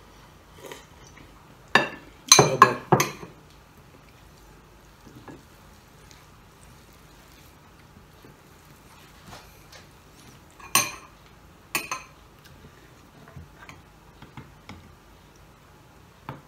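Tableware clinking and knocking on a plate and table during a meal: a quick cluster of clinks about two seconds in, then single clinks near eleven and twelve seconds, with faint small taps between.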